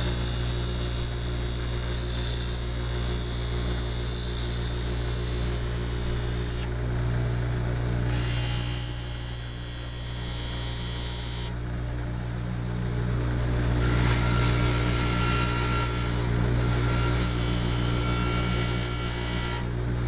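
Bench grinder running with a steady motor hum, while a small piece of metal is pressed against the spinning wheel in three spells of hissing grinding, each breaking off for a second or two. The metal is being ground away around a lock-pick head.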